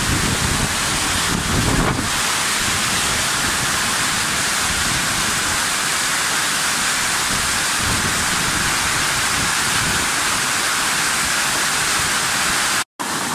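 Torrential rain pouring down in a steady, dense hiss. A low rumble of wind on the microphone comes in during the first two seconds, and the sound cuts out for a moment just before the end.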